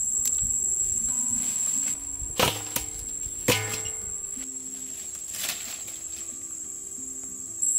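Steady high-pitched insect drone over soft background music, with two sharp knocks about two and a half and three and a half seconds in.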